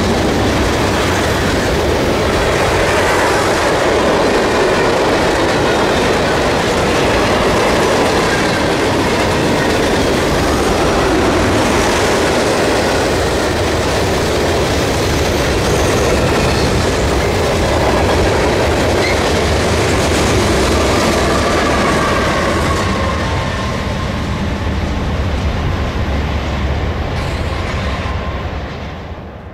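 Freight cars rolling past at close range, their wheels clattering over the rail joints, with a faint wheel squeal in the second half. The noise falls away near the end as the last car goes by.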